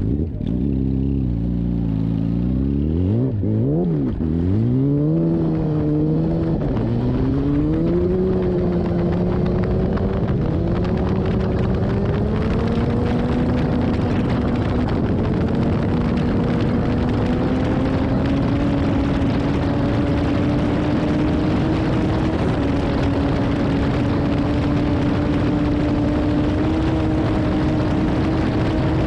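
Kawasaki ZX-12R inline-four sportbike engine at full throttle from a standing start. Its note rises and drops back through quick gear changes in the first several seconds, then climbs slowly and steadily in a high gear as the bike passes about 100 and then 160 mph. Wind rushes over the onboard microphone, growing louder with speed.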